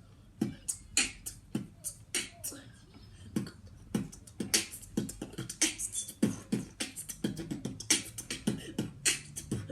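Beatboxed drum beat: kick-drum thumps and snare and hi-hat clicks made with the mouth, in a steady rhythm that gets busier after about four seconds.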